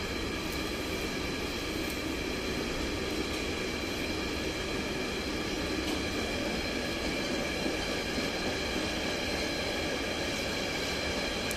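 Container flat wagons of a freight train rolling past, a steady rumble of wheels on rails with thin, steady high ringing tones over it.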